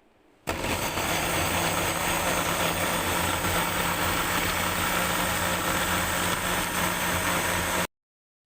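A loud, steady motor running, with a constant low hum under a wide hiss; it starts abruptly about half a second in and cuts off just as abruptly near the end.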